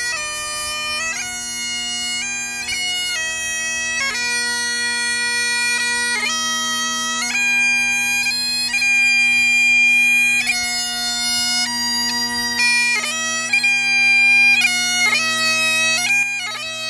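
Great Highland bagpipe playing a tune: a steady drone sounds under the chanter's melody, which steps from one held note to the next.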